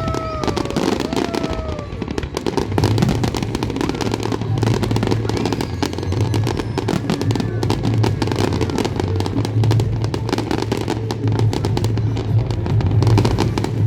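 Fireworks crackling and popping continuously in a dense, rapid stream, with a few short falling whistles in the first couple of seconds, over music with a steady low bass.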